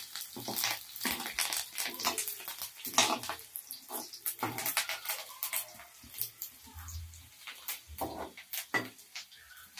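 Perforated steel ladle scraping and knocking against a kadai while stirring garlic and curry leaves frying in oil, with a hiss of sizzling oil underneath.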